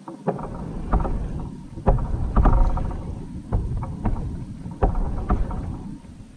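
Knocks and thumps from a plastic sit-on-top fishing kayak and its fittings as the person in it shifts about, over a low rumble. Among them is a short creaking squeak about two and a half seconds in.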